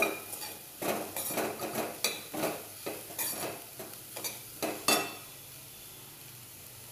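Stainless steel spatula scraping and knocking against a kadhai while stirring chopped vegetables, in quick irregular strokes that stop about five seconds in. A faint sizzle of the frying vegetables is left after the stirring stops.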